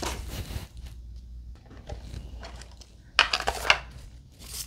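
A hard plastic coffin-shaped toy package being handled and opened: light tapping and rustling, then a quick run of sharp plastic clicks and clacks a little over three seconds in as the lid comes off.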